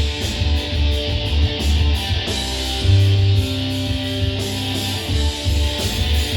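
Instrumental rock music: a guitar-led intro over a pulsing bass line, with no singing yet.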